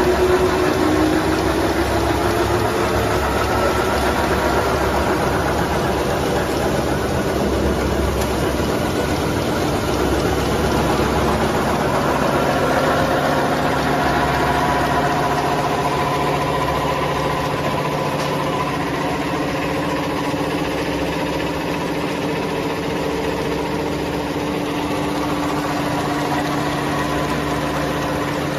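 Paper cup flexo printing and rotary die-cutting machine running continuously, a steady mechanical hum with a few held tones that become clearer about halfway through.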